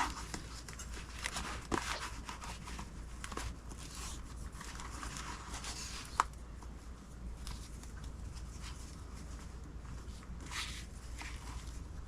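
Soft rustling and light handling noises as ribbon is wrapped around a cardstock treat box and tied into a bow, with one sharp tick about six seconds in.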